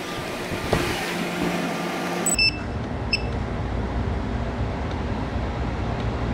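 Steady mechanical room hum, with a click under a second in and two short high beeps about two and a half seconds in.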